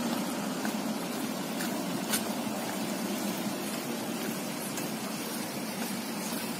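Steady city street noise, the hiss of passing traffic, with a single sharp click about two seconds in.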